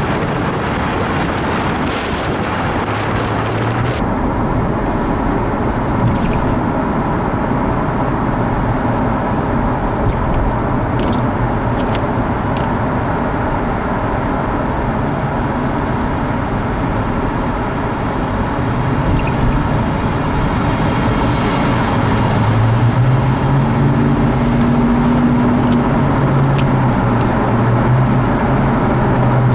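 Road and traffic noise in a road tunnel. From about four seconds in comes the steady tyre and engine noise of a vehicle driving through the tunnel, with a low engine hum growing louder in the last several seconds.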